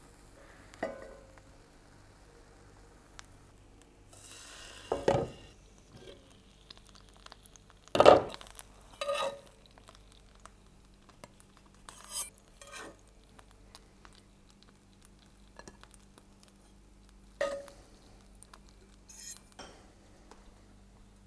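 A metal spatula and hands knocking and clinking against a nonstick frying pan and a plate while fluffy pancakes are turned and lifted out: about eight separate clinks and knocks, the loudest about eight seconds in, over a low steady hum.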